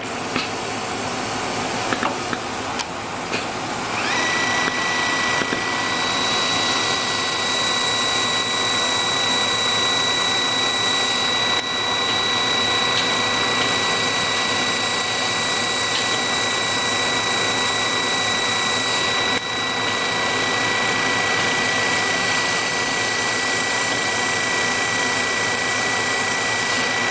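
Centerless grinder running and grinding metal workpieces, with a steady hiss and a few light clicks. About four seconds in, a steady high-pitched whine sets in and holds, briefly dipping once about two-thirds of the way through.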